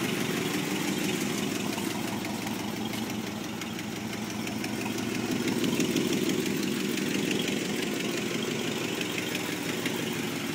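Pontiac Trans Am engine idling with a fast, steady ticking from the valvetrain: lifter noise.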